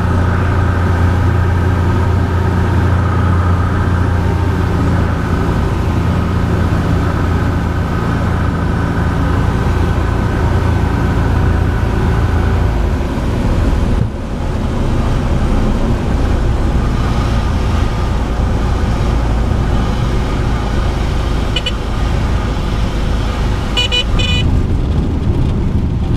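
Single-engine light plane's piston engine and propeller, heard from inside the cockpit, running steadily at reduced power. About halfway through the sound changes suddenly to a rougher, less even rush, and a few short high chirps come near the end.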